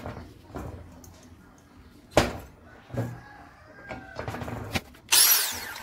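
Metal knocks and clunks as a steel plate is set and clamped in a bench vise, the sharpest about two seconds in. About five seconds in, an angle grinder runs briefly for about half a second, its pitch sweeping.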